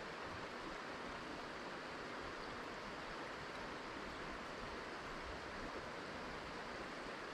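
Flowing river water: a steady, even rush with no distinct events.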